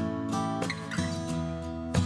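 Background music: strummed acoustic guitar with notes and chords changing about every half second to a second.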